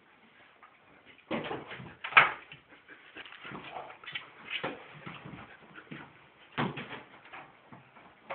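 Siberian husky whimpering, among a run of sharp knocks and bumps; the loudest knock comes about two seconds in.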